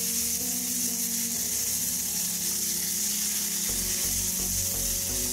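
Flour-dredged cod pieces frying in hot vegetable oil in a pan: a steady sizzle.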